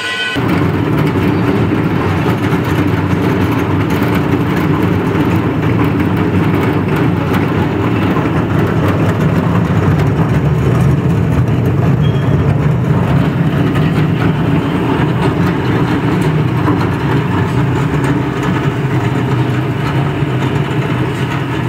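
Electric-motor-driven chura (flattened rice) making machine running steadily with a load of paddy churning in its pan: a loud, even mechanical rumble with a gritty hiss over it.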